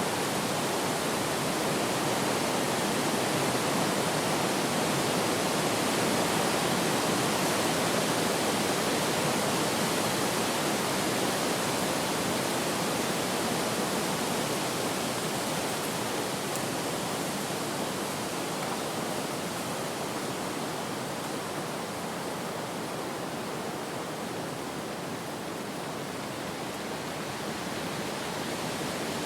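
Wind ambience: a steady, even rushing that slowly swells over the first several seconds and then gradually eases off.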